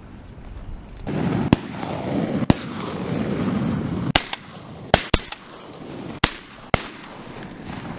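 A volley of shotgun shots at ducks flying over, about eight sharp bangs spread over five seconds, some close and loud and some fainter, over a rushing noise that is strongest in the first few seconds.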